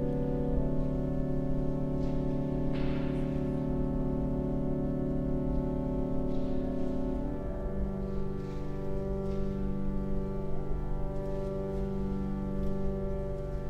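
Organ music: long sustained chords, moving to a new chord about seven and a half seconds in.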